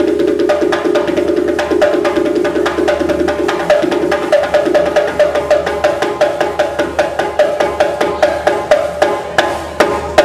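Music driven by fast drumming over a steady pitched accompaniment, the drum strokes standing out more sharply in the second half.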